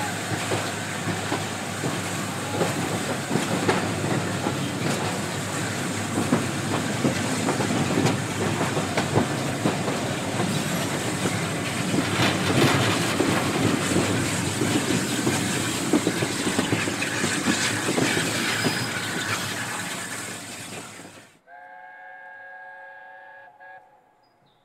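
Steam-hauled passenger train heard from an open carriage window: steady running noise with wheels clattering over the rail joints, cutting off abruptly about 21 seconds in. Then a distant LNER A4 locomotive's chime whistle sounds for about two and a half seconds, and faint birdsong follows.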